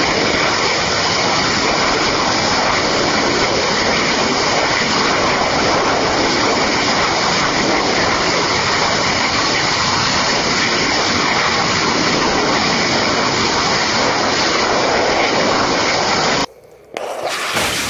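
Rocket engine of a Masten vertical-takeoff, vertical-landing test vehicle firing steadily in a hover: a continuous, even rushing noise. It cuts off abruptly near the end, and after a brief drop a different steady hiss begins.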